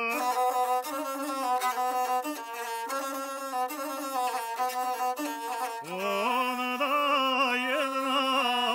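Gusle, the single-string bowed folk fiddle, playing a short melodic interlude between verses of an epic song, stepping from note to note. About six seconds in the pitch slides upward into wavering, ornamented notes.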